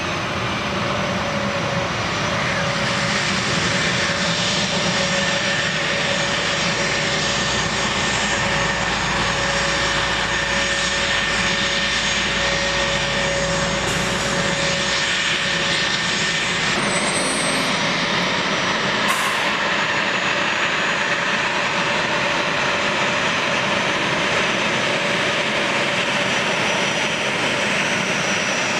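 An A-10 Thunderbolt II's two General Electric TF34 turbofan engines running at taxi power: a steady jet rush with a high whine. The whine's tone changes a little past halfway, while the rush carries on unbroken.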